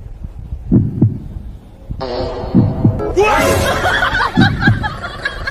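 Low double thumps like a heartbeat, three pairs nearly two seconds apart, picked up by a karaoke microphone pressed into a dog's fur. From about two seconds in, a louder, rough, wavering pitched sound plays over them.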